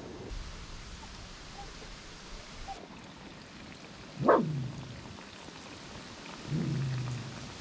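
Dog whining: a short, loud whine that falls sharply in pitch about four seconds in, then a lower, longer whimper near the end.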